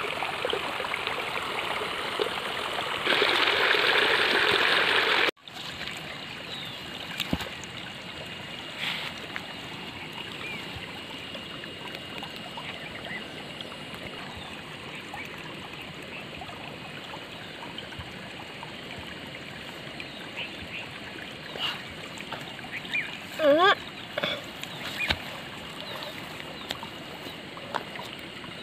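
Steady rushing noise like running water, loud for about the first five seconds, then cut off abruptly to a fainter, steady hiss. A few short chirps and light taps sound near the end.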